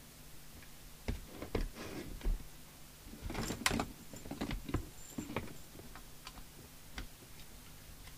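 Irregular clicks, taps and light rattles of hands working on a CB radio chassis and its leads at a bench, over a faint low hum.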